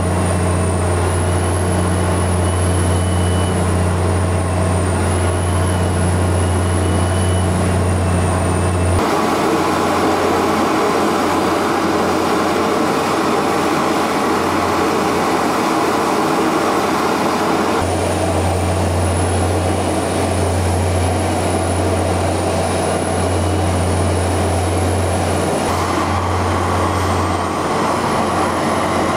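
Steady hum and rushing noise of launch-pad ground equipment around a rocket on the pad, with a strong low drone and a faint high whine that wavers in pitch. The drone drops away about a third of the way in, returns about two-thirds in, and shifts again near the end.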